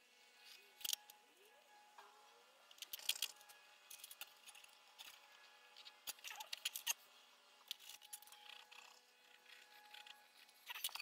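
Faint, scattered clicks and scrapes of small steel pieces, a knife template, a steel ruler and the blade blank, being handled and shifted on a wooden workbench, along with marker-pen strokes on the steel.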